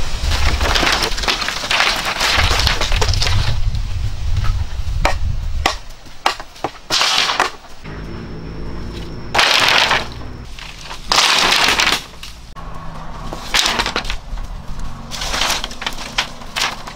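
Split bamboo strips and poles knocking and clattering together as they are handled and laid, with many sharp cracks and clacks and two louder bursts near the middle.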